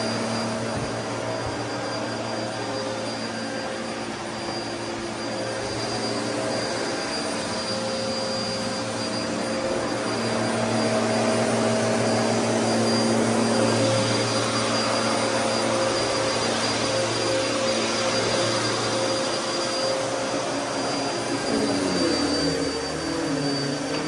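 Upright vacuum cleaner running while it is pushed across low-pile carpet: a steady motor drone with a thin high whine, its tones shifting and wavering near the end.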